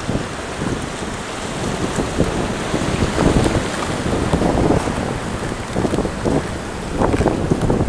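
Sea surf breaking and washing over rocks, with wind buffeting the microphone. The wash swells louder about three seconds in and again near the end.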